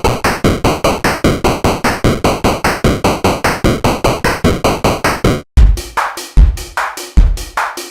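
Electronic music: a fast run of short repeated notes, about five a second, then after a brief break about five and a half seconds in, a beat with deep drum hits comes in.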